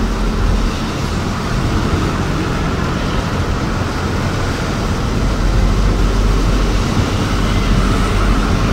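Steady engine drone and road noise of a moving vehicle, heard from inside its cab.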